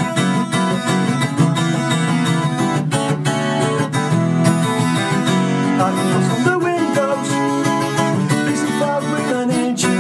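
Acoustic guitar being strummed: the instrumental intro of a song, played straight after a spoken count-in.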